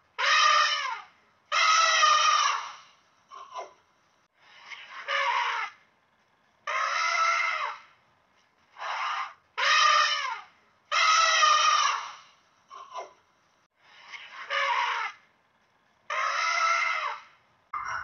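A series of loud, high-pitched animal calls, about ten in all, each under a second and a half long, with short silent gaps between them.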